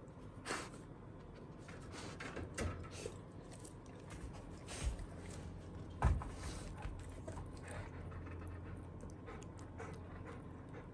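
A golden retriever panting, with a few sudden knocks and rustles among it; the loudest is a low thump about six seconds in.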